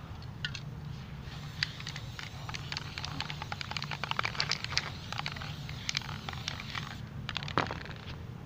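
Aerosol spray paint can spraying in a hiss from about a second in until about seven seconds in, with many small crackling clicks through it and a sharper click near the end.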